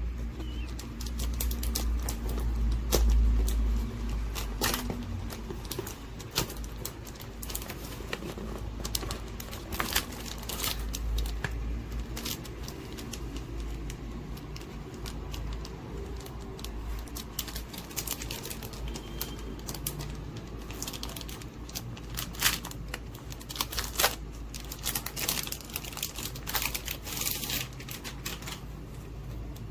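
Keys of a Logitech K380 Pebble keyboard being typed on: irregular light clicks and taps, sometimes in quick clusters, over a steady low rumble.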